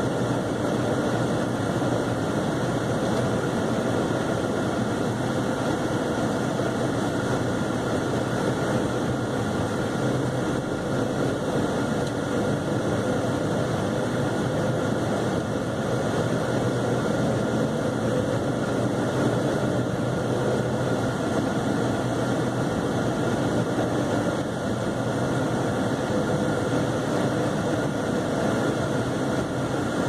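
Steady cabin noise of a Chevrolet Cavalier being driven on a snow-covered road: engine running and tyre noise, even throughout.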